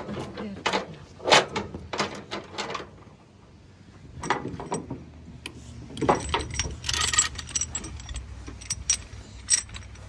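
Steel tie-down chain clinking and rattling against the trailer's steel stake-pocket rail as the excess chain is wrapped around it, a quick run of clinks, a short pause about three seconds in, then more clanks of chain hooks and a load binder being handled, busiest about seven seconds in.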